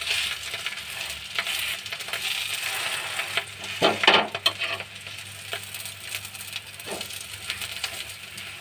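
Puff pastry patty sizzling as it heats in a frying pan on a medium flame, with a metal spoon scraping and tapping against the pan; a louder scrape comes about four seconds in.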